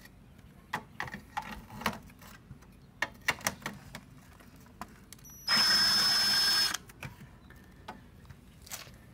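A power drill runs for about a second, backing out a screw from the lawn mower's pull-start housing. Before it come scattered clicks and knocks of tools and parts being handled.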